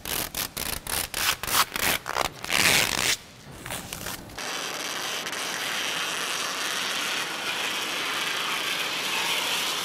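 Protective plastic film being peeled off the glass doors of a new CNC machine: a quick series of crackling rips over the first few seconds, then, after a short pause, one long, even peel with a steady hiss.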